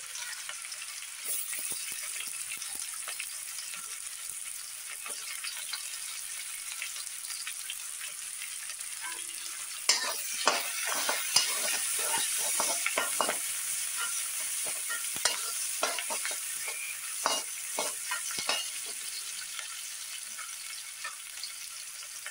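Sliced onions and chopped garlic sizzling in hot oil in a heavy kadai on full flame. From about ten seconds in, a slotted spoon stirs them, clicking and scraping against the pan.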